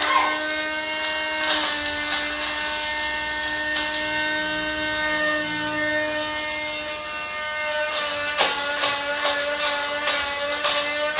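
Small personal bottle blender's motor running steadily as it grinds dry eggshells into powder, with a steady whine. Its pitch wavers and rattling clicks come in for the last few seconds.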